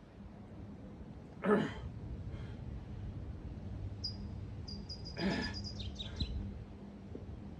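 Two forceful exhales, each brief, about four seconds apart, from someone straining through resistance-band presses on an X3 bar. A bird chirps a rapid run of high notes between them.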